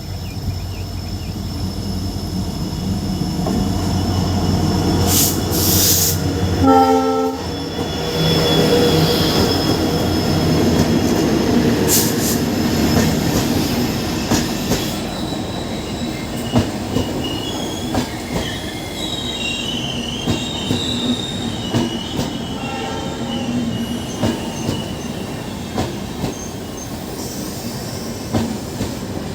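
WDP4D diesel locomotive hauling a passenger train past, its engine rumbling, with a short horn blast about seven seconds in. The coaches then roll by with rhythmic wheel clatter and high-pitched wheel squeal.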